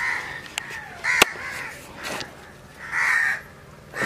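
Crows cawing: four harsh caws about a second apart, the loudest about three seconds in, with a few sharp clicks in between.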